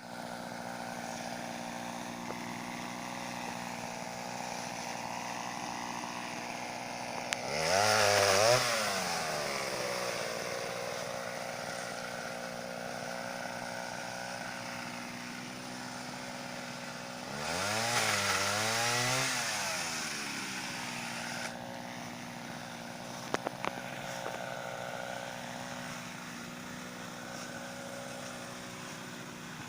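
Two-stroke Mitsubishi TL26 brush-cutter engine driving a pole saw, running at idle and revved up twice, each time rising in pitch for a couple of seconds and then falling back to idle. A few short clicks come about two-thirds of the way through.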